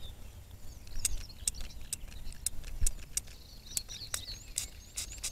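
Small birds chirping. Short rising high chirps repeat a few times a second in the second half, over a scatter of light clicks, and there is a soft thump about three seconds in.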